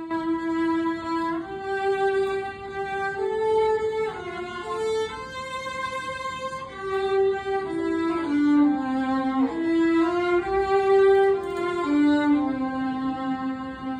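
Two violins playing a slow melody together in long held notes that step from pitch to pitch. The playing begins right at the start.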